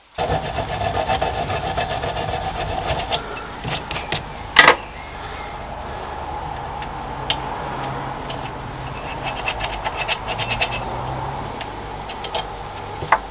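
Small hand file rasping a 3 mm keyway into the bore of a metal gear, in repeated strokes, with a sharp knock about four and a half seconds in.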